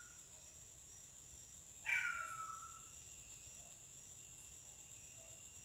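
Night insects, likely crickets, chirring steadily in a high shrill tone, with one louder call about two seconds in that starts high and slides down, held for close to a second.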